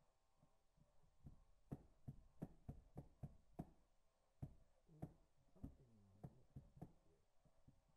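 Faint, irregular metallic clicks and clunks from the gears and synchro sleeves on a Datsun 260Z four-speed manual transmission's mainshaft as it is turned and worked by hand, starting about a second in at a few clicks a second.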